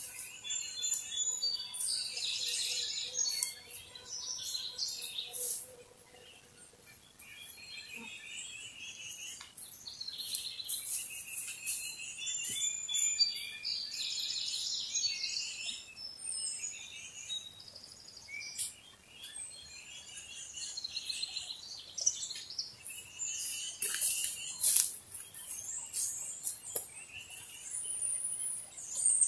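Several songbirds calling and singing, with overlapping chirps and short trilled phrases throughout and a few sharp ticks among them. A faint steady hum is heard in the first six seconds.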